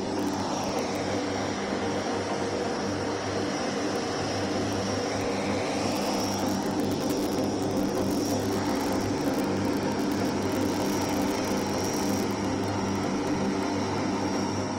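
Turboprop engines of a C-130J-30 Super Hercules, four Rolls-Royce AE 2100s with six-blade propellers, running as it taxis. It is a steady propeller drone with a high, even turbine whine above it.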